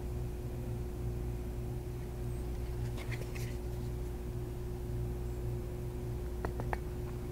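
Steady low electrical hum, with a few faint light clicks about three seconds in and two sharper clicks near the end.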